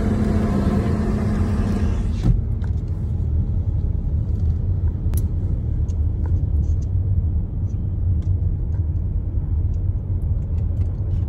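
Steady low rumble of road and engine noise heard inside a moving car's cabin. For the first two seconds a steady hum with a hiss sits on top, then stops suddenly with a click, leaving the rumble and a few faint ticks.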